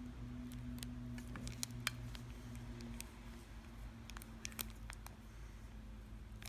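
Handling noise of a Zippo lighter in its plastic wrapper: a scatter of small sharp clicks and taps, with soft crinkles, as it is turned over in the hands, over a low steady hum.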